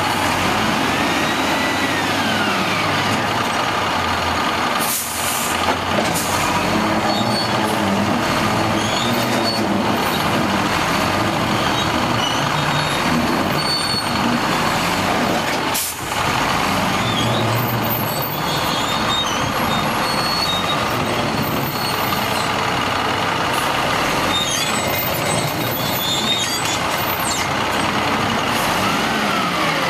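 Cummins diesel engine of a WhiteGMC Xpeditor WX-42 roll-off truck running and changing pitch as the Amrep hoist works a roll-off container. Two sharp air hisses come through, about five seconds in and again near the middle.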